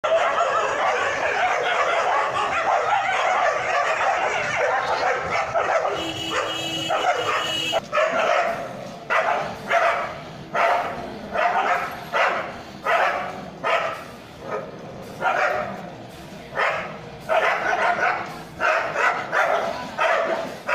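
Dogs barking and yelping in a scuffle: a dense, unbroken din for the first several seconds, then a run of separate barks, roughly one to two a second.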